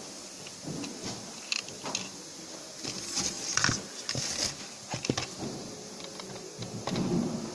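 Irregular light clicks and knocks of small parts being handled, with a brief hissy scrape between about three and four and a half seconds in.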